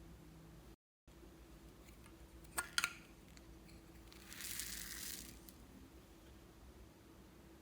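Handling of slime-making materials: a quick cluster of small sharp clicks, then about a second of crinkly rustling.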